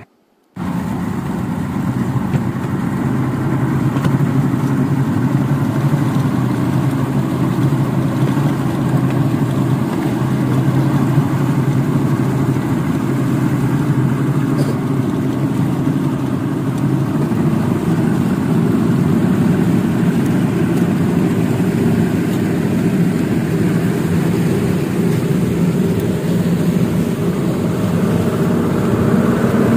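Boat engine running steadily at constant speed during a water crossing, with a slightly louder, higher hum near the end.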